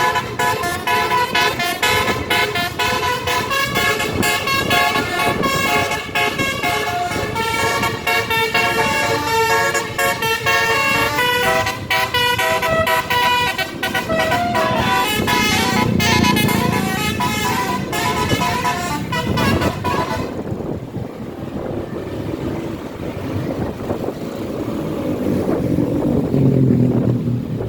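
A bus's Basuri telolet horn, a multi-trumpet musical horn, plays a tune of stepping notes for about twenty seconds and then cuts off. After it, only road and engine noise remains, with a low rumble that swells near the end.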